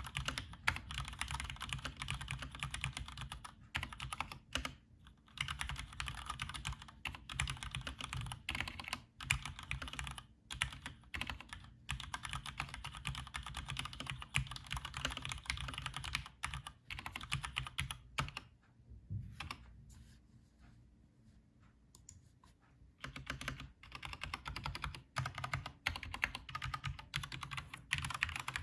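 Typing on a Cherry G80-3000S TKL mechanical keyboard: rapid runs of keystrokes with brief pauses, thinning to a few scattered strokes for several seconds about two-thirds of the way through before fast typing resumes.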